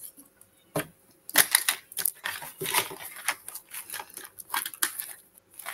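Irregular clicks and taps of small plastic wax caddies being handled and put down on a table, with paper rustling.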